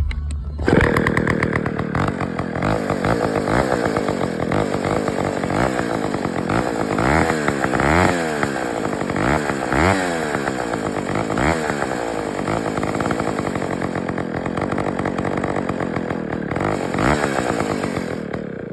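Vintage 1958 Partner R11 chainsaw's 90cc two-stroke engine starting up and running, revved up and down several times in the middle, then cutting off at the end. The owner figures its idle probably needs adjusting after years of sitting.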